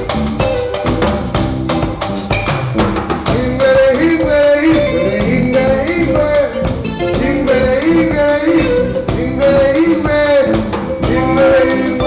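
Live band music: a balafon, a West African wooden xylophone, played fast with mallets over electric bass and drums, with singing over it.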